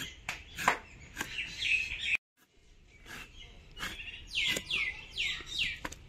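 Small birds chirping, with a run of four quick falling calls in the second half. Several sharp clicks and knocks in the first two seconds, the loudest about half a second in, and the sound drops out briefly just after two seconds.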